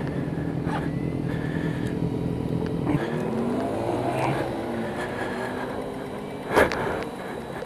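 Yamaha R1 inline-four engine running at low speed on an overheating bike. Its steady low note drops away about three seconds in, and a single sharp knock comes near the end.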